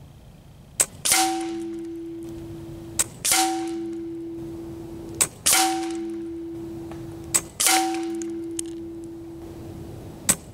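Hatsan Factor RC regulated PCP air rifle firing five shots about two seconds apart on high power. Each sharp crack is followed a moment later by a ringing metallic clang from the pellet striking metal downrange, which fades slowly until the next shot.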